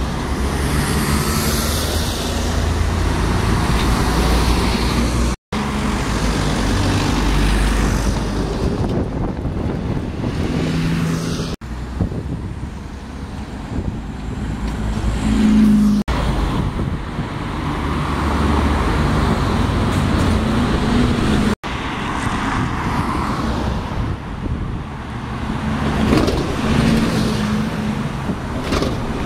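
City buses' engines running as they approach and pull away in street traffic, with road noise around them. The sound breaks off abruptly several times where one clip ends and the next begins.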